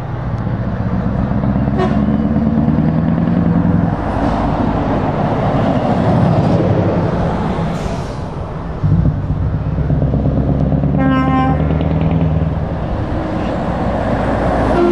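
Heavy diesel lorries running as they drive past one after another, the Scania V8 tractor unit loudest in the first few seconds. About eleven seconds in, a truck horn sounds for roughly half a second.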